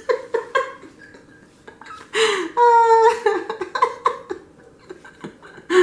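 A woman laughing and giggling, with a long high-pitched squeal of laughter about two and a half seconds in.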